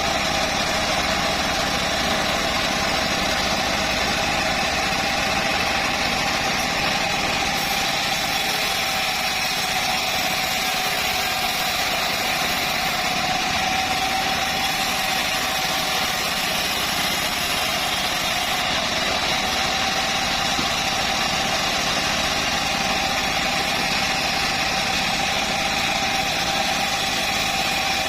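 Homemade bandsaw mill running steadily, with an even whine that holds its pitch throughout.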